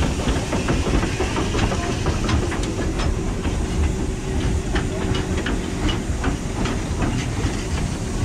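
Metre-gauge steam train passing close by: the locomotive goes past hissing steam, then its carriages roll by with a low rumble and irregular clicking of wheels over the rail joints.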